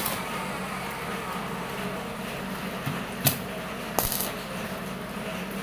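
Stick (electrode) arc welding on a steel frame: the arc crackles and buzzes steadily, with a couple of sharp clicks about three and four seconds in.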